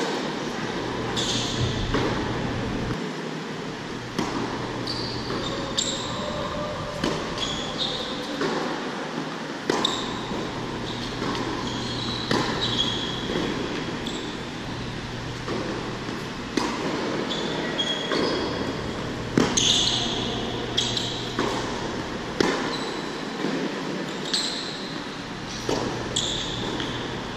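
Tennis rally on an indoor hard court: racquet strikes and ball bounces, each a sharp pop echoing in a large hall, with short high squeaks of tennis shoes. A steady low hum runs underneath.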